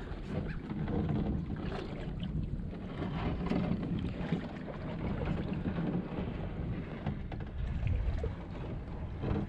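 Water sloshing and lapping around a small boat being pushed through shallow bay water, with a low wind rumble on the microphone.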